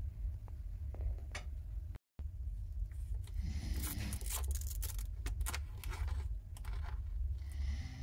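Scratchy rustling, scraping and clicking handling noises as a hand picks up and moves the power cord of a Stihl AL 301 charger, over a low steady rumble. The sound drops out completely for a moment about two seconds in.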